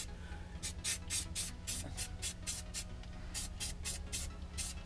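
Aerosol spray-paint can spraying in short, quick hissing bursts, about three or four a second, with a brief pause partway through.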